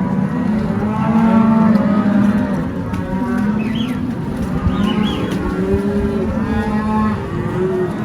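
A herd of beef cattle mooing and bawling, many long calls overlapping one another without a break.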